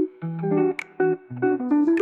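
Lofi jazz hip hop music: chords played on a plucked, guitar-like instrument, with short drum hits near the start and the middle and again near the end.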